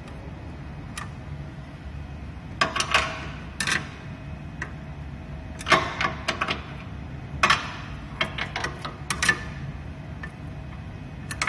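Irregular metallic clicks and clacks of a nut driver being fitted onto and turning the build-platform leveling nuts of a Moai SLA resin printer, each nut tightened a half turn to set the platform's gap, over a steady low hum.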